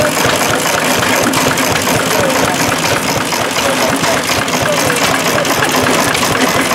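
McCormick-Deering Model M hit-and-miss engine running steadily, driving a flat belt to a McCormick-Deering corn grinder that is grinding corn, with a dense, rapid mechanical clatter.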